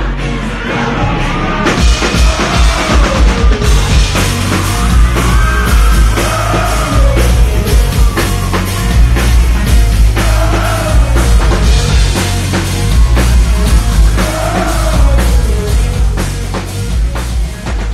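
Live rock band playing loudly: heavy drums and bass with a voice singing the melody over them.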